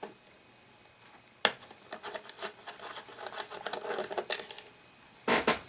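Screwdriver working on the small screws of an analog pyrometer's casing: a sharp click, then a couple of seconds of quick small clicks and scraping, and two loud knocks near the end.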